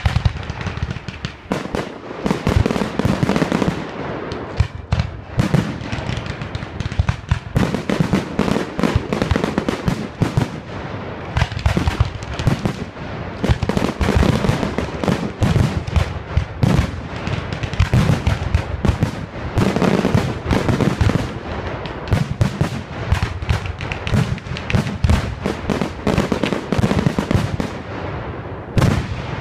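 Fireworks display in a barrage: aerial shells bursting in a dense, rapid stream of bangs that starts suddenly and goes on without a break.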